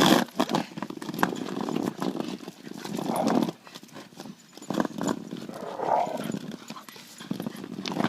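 Puppy growling in rough bursts of a second or so, mixed with scuffling and a few sharp knocks, protesting as someone tries to take something from it.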